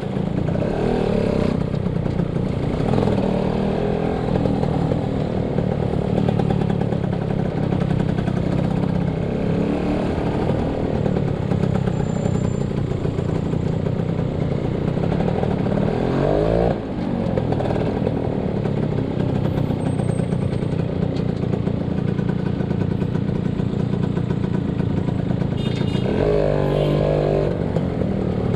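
Yamaha SS motorcycle engine running under way, with steady wind and road noise on the microphone. About two-thirds of the way through, the engine note briefly drops and then climbs again, and near the end a rising engine note swells.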